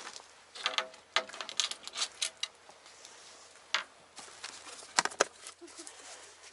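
Footsteps on stones: an irregular series of sharp clicks and scrapes, the loudest two close together about five seconds in.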